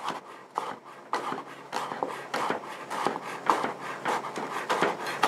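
Chef's knife slicing a halved leek into thin half-moon slices on a bamboo cutting board: a steady run of crisp cuts, each ending in a tap of the blade on the wood, about three a second.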